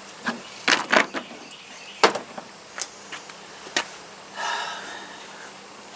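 Sharp knocks and clicks of the Stihl 021 chainsaw being handled on a plastic truck-bed liner, the loudest about a second in and again near two seconds, with a short rasping noise about four and a half seconds in. The engine does not run.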